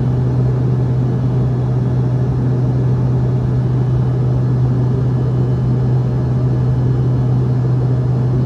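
Airliner cabin noise: the engines and airflow make a steady, loud drone with a constant low hum underneath.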